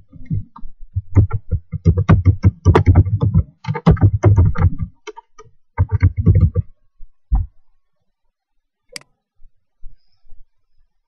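Fast typing on a laptop keyboard: runs of keystrokes that stop about seven and a half seconds in, followed by a single click near nine seconds.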